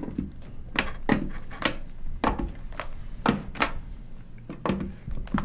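Irregular light knocks and clicks, about ten of them, as a screw gun's steel nut driver is set onto the washer-head screws and knocks against the metal flange of the pipe boot.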